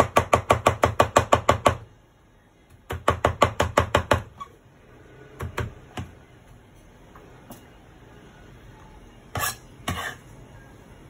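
Kitchen knife chopping rapidly on a cutting board: two quick runs of about seven strokes a second, then a few single knocks near the middle and end.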